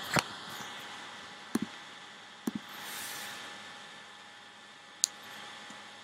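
A few soft taps and knocks from handling and tapping the iPad close to its microphone, about a second and a half and two and a half seconds in, then one sharp click about five seconds in, over a steady low hiss.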